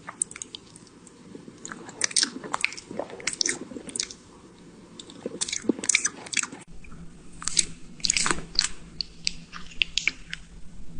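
Close-up crunchy eating sounds: irregular bites and chewing of crisp food, one crunch after another. A low steady hum comes in under them about two-thirds of the way through.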